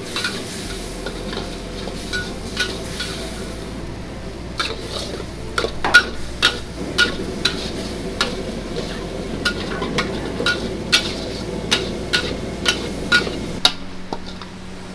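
Metal ladle scraping and striking a wok as Hokkien mee noodles are stir-fried in soy sauce, over a steady sizzle of frying. The ladle strikes come about twice a second and stop near the end.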